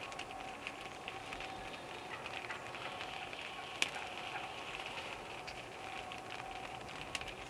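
Quiet woodland ambience: a steady hiss with many faint crackles and ticks, a faint steady tone underneath, and one sharp click about four seconds in.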